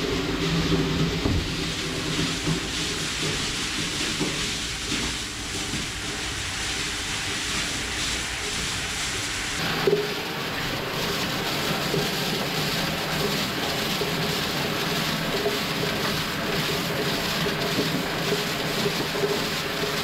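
Flake ice pouring down a flexible hose into a boat's fish hold: a steady hiss and patter of ice, over a steady mechanical hum.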